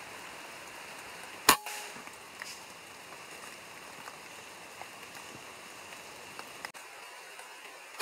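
A PCP air rifle fires once about a second and a half in, a sharp crack followed by a short ringing tone, and fires again right at the end, over a steady hiss of rain.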